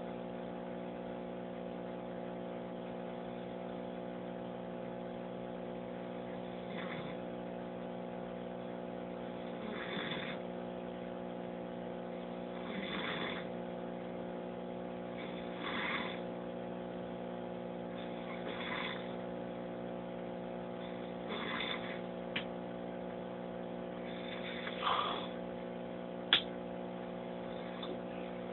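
A sleeping man snoring, one noisy snore about every three seconds, over a steady electrical hum. Near the end come two sharp knocks, the second louder.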